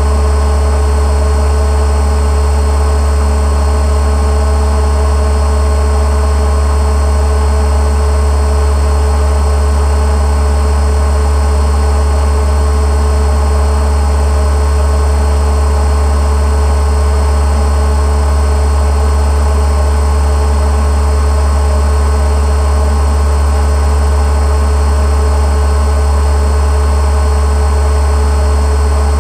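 Boat motor running steadily at an unchanging speed: a constant low drone with a few steady tones above it.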